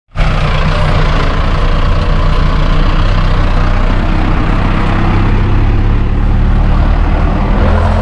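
Mahindra Novo 605 tractor's diesel engine running steadily at an even speed, close and loud.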